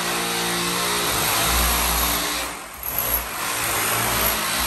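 Corded handheld electric power tool cutting into a plaster and brick wall, running steadily under load with a motor hum. The noise dips briefly a little past halfway, then picks up again as it bites back in.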